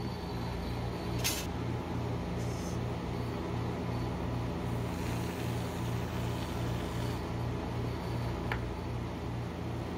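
Rolled-ice-cream cold-plate machine humming steadily, with a low pulsing beat of about three pulses a second. A sharp click about a second in.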